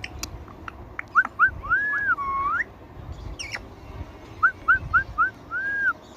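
Indian ringneck parrot giving short, high, chirped notes in quick runs: two quick notes and two longer drawn-out ones about a second in, then four quick notes and a longer one near the end. A sharp click comes in between.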